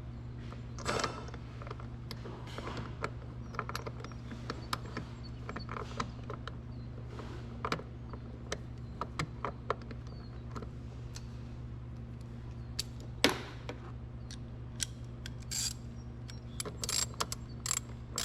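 Tools clicking and scraping on metal as the door striker's two screws are started and driven in, with one sharper click about 13 seconds in. A steady low hum runs underneath.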